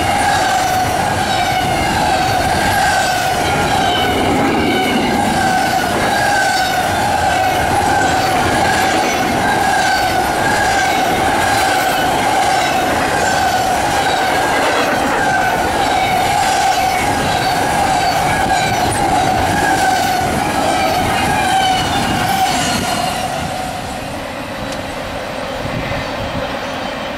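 CSX double-stack intermodal freight cars rolling past at speed, wheels clattering rhythmically over the rail with a steady high wheel squeal. About 23 seconds in the squeal stops and the sound drops away as the end of the train passes.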